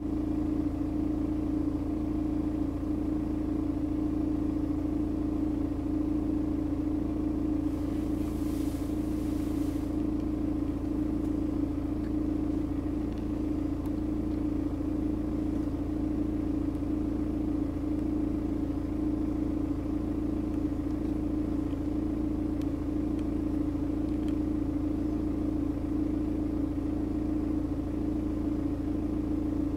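BMW 118d's N47 four-cylinder diesel idling warm with a light sawing, vibrating, grinding noise: a steady drone with a slight wavering about once a second. The noise comes only at warm idle and goes away with a slight rise in revs or with the air conditioning switched on; its cause is unknown.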